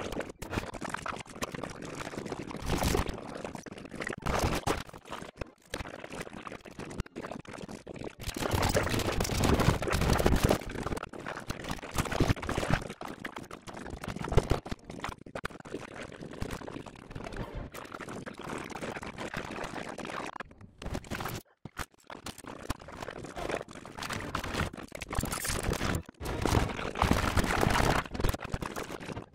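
Soundtrack of an animated film chopped into a rapid montage: a dense, noisy mix of sound effects with no clear speech or music, broken by several abrupt cuts into brief silence.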